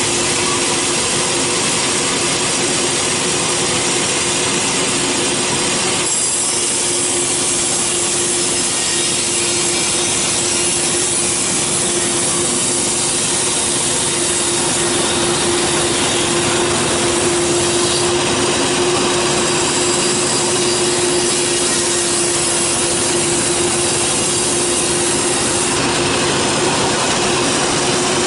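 Large band sawmill ripping through a teak log: a loud, steady hiss of the blade in the wood over a constant hum from the machine.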